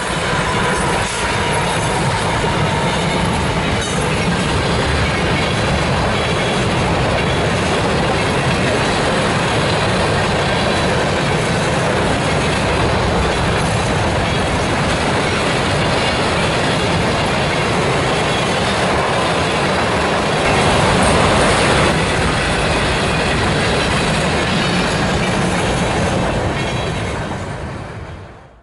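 Mixed freight train rolling past close by: a steady, loud rush of steel wheels on the rails and rattling cars, trailing diesel units giving way to covered hoppers and tank cars. The sound fades out near the end.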